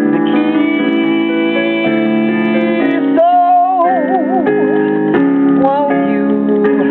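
Music: a woman singing a song with keyboard accompaniment, holding one wavering note about three seconds in.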